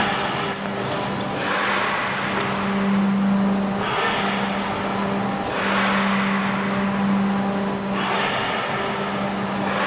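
Paper egg tray production line machinery running: a steady electric hum under rushes of hissing noise that recur about every two seconds.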